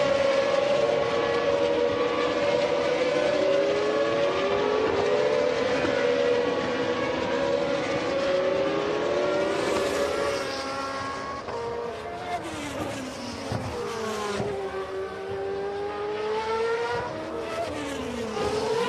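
Several GP2 race cars' V8 engines running at high revs, overlapping, their pitch rising and falling through gear changes as the cars pass.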